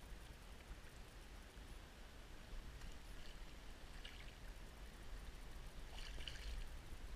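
Hooked fish splashing at the surface of shallow water as it is played towards a landing net: faint short splashes about three, four and six seconds in.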